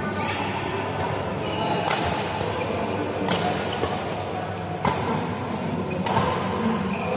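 Badminton rackets hitting a shuttlecock in a doubles rally: about five sharp hits, roughly a second and a half apart.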